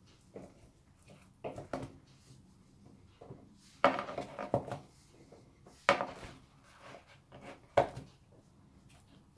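Zucchini slices being turned over and knocked against a plastic mixing bowl while they are seasoned from a pepper shaker: light, irregular knocks and clatter, about eight in all, the loudest about four and six seconds in.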